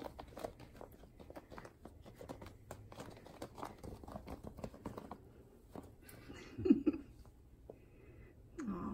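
A puppy scratching and digging at a plush dog bed and its floor liner: a run of quick scratchy patters and rustles. A brief louder pitched sound comes about 7 s in and another just before the end.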